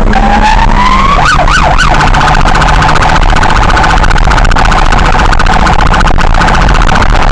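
Patrol car's electronic siren switching on. It starts with a rising wail, gives three quick up-and-down whoops about a second in, then settles into a rapid, steady warble over engine and road noise.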